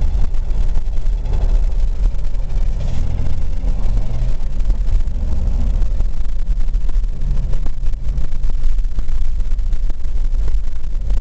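Jeep Wrangler's 4.0-litre straight-six engine running while the Jeep is driven: a steady low rumble whose pitch shifts a little. The engine has an abnormal noise that began recently, and it is the same noise when moving as when standing.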